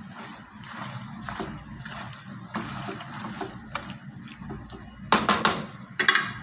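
Spoon stirring penne in a thick sauce in a nonstick frying pan, giving uneven stirring noises stroke by stroke, with a few louder knocks of the spoon against the pan near the end.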